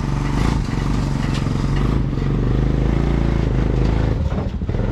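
Four-wheeler (ATV) engine running under load as it tows a dirt late model race car up ramps onto a trailer, its pitch rising and falling a little, with a brief dip near the end.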